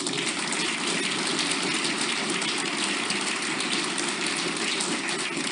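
Audience applauding steadily, starting abruptly as a talk ends.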